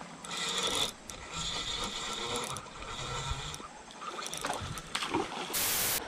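Spinning fishing reel being cranked, its gears whirring in several short spells of retrieve. A short burst of loud hiss near the end.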